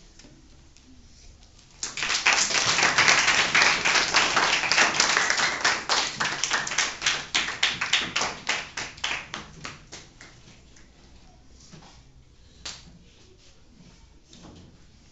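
A class of schoolchildren applauding: the clapping starts about two seconds in and thins to a few scattered claps by about ten seconds, with one more clap a little later.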